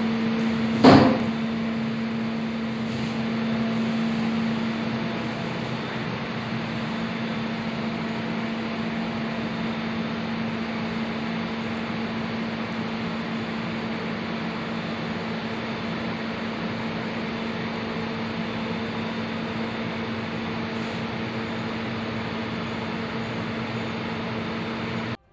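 Steady hum and fan noise of a Noritsu QSS-3411 photo minilab, with a low steady tone that fades out about five seconds in. A single sharp knock comes about a second in.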